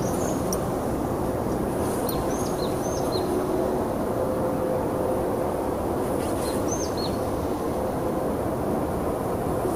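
Steady rushing outdoor background noise with a small bird chirping: a run of short high chirps about two to three seconds in and a few more near seven seconds.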